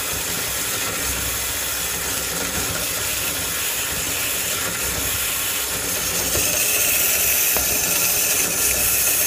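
Metal-cutting band saw running its blade through a solid round steel bar: a steady hiss over a low machine hum, getting a little louder with a thin high whine about six seconds in. The saw cuts without coolant water, its blade cooled by a hissing air-and-product mist.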